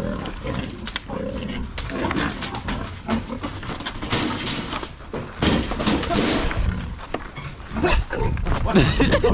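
Dogs growling and snarling as they scuffle, with bursts of rustling about halfway through.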